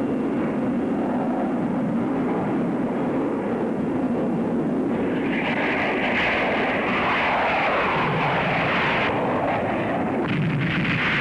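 Jet aircraft flying low overhead: a continuous engine rush, with a higher hiss joining about halfway through and a falling pitch as the aircraft passes.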